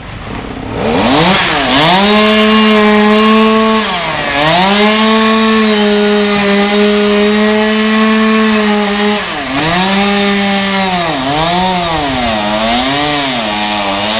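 Two-stroke chainsaw revved to full throttle while cutting palm fronds, coming up to speed about a second in, then dropping off briefly and picking back up several times.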